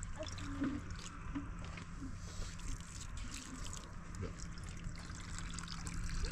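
A thin stream of water trickling from a container into a metal bowl, with small clinks of the bowl.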